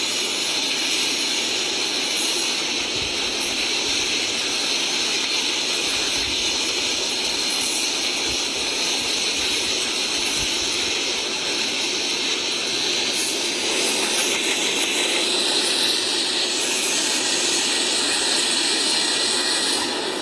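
Passenger train coaches rolling past at close range: a steady rushing roar with a high hiss and faint whine over it, and occasional low thuds.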